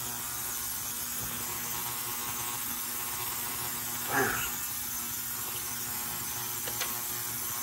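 Steady electrical hum, with one short sound about four seconds in and a faint click near the end.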